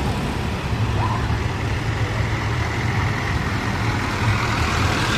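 Heavy vehicle engine noise, a steady low rumble.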